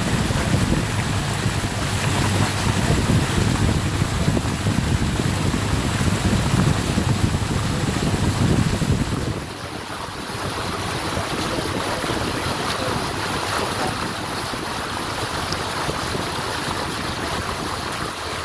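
Tour boat underway on a river: a steady rush of motor, water and wind on the microphone. The low rumble eases off about halfway through.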